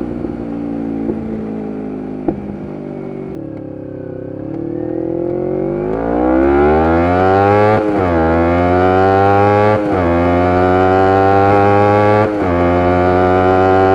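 2011 Kawasaki Ninja 250R SE parallel-twin engine heard through a full Graves race exhaust. It eases off the throttle for the first few seconds, with a few sharp exhaust cracks. Then it revs up hard from about five seconds in and pulls through three upshifts, each a brief dip in pitch before the engine climbs again.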